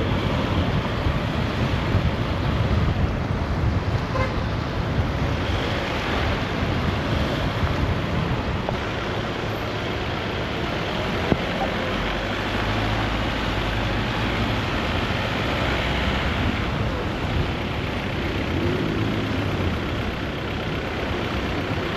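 A car driving along a road: steady engine hum and tyre and road noise, with a single sharp click about halfway through.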